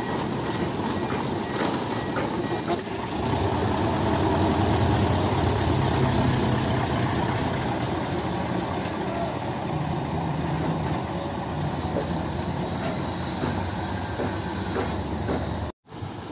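Diesel truck engine idling close by, a steady low rumble that grows louder about three seconds in and settles again a few seconds later. It breaks off briefly near the end.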